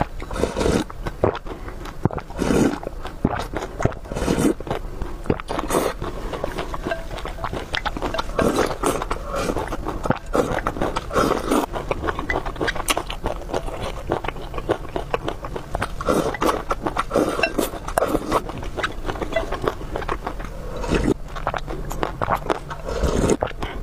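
A person eating close to the microphone, chewing with a steady run of wet smacks and mouth clicks.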